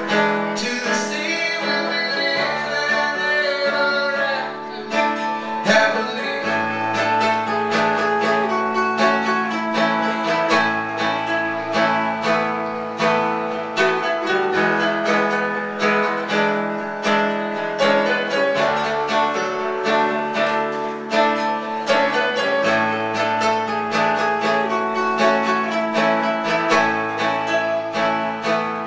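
Solo live acoustic guitar, picked in a quick steady pattern over held low bass notes that change every few seconds. A man sings briefly at the start, then the playing goes on as an instrumental passage.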